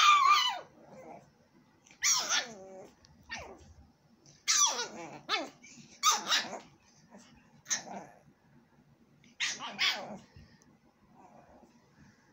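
Small dog giving a series of high-pitched barks during play, each one dropping in pitch, spaced a second or two apart.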